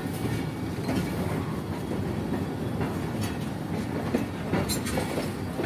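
Train running along the track: a steady low rumble with irregular clattering knocks of the wheels over the rails.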